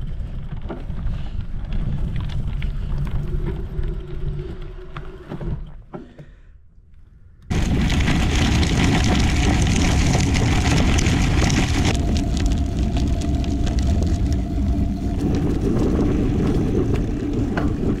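Riding noise from a mountain bike on a dirt trail: wind rumbling on the microphone over the crunch and rattle of knobby tyres on dirt and gravel. It turns quieter briefly, then jumps abruptly louder about seven and a half seconds in and stays loud.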